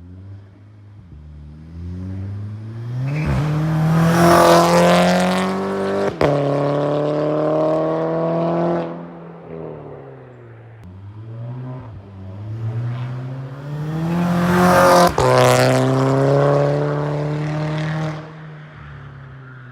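Mk6 VW Golf GTI's turbocharged four-cylinder, with a catless downpipe and a resonator-free cat-back exhaust, pulling hard twice: each time the engine note climbs for a few seconds, gives a sharp crack, holds, then falls away.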